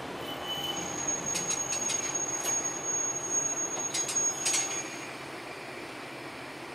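A train rolling slowly, heard from inside the cab: a thin, high wheel squeal holds for about four seconds along with several sharp clicks, over a steady running hum, and the sound eases off near the end.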